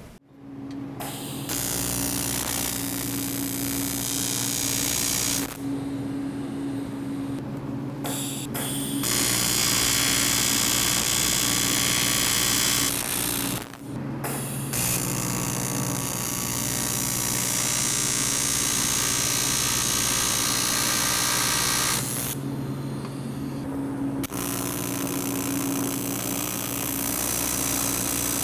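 AC TIG welding arc on aluminum bicycle-frame tubes, tack-welding: a steady electric buzz with a hiss. The arc stops for about three seconds around six seconds in, briefly near fourteen seconds, and for about two seconds around twenty-three seconds, then strikes again.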